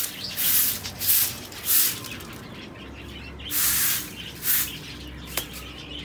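Straw broom sweeping a concrete floor in repeated quick strokes, about three in the first two seconds, then a pause and a few more.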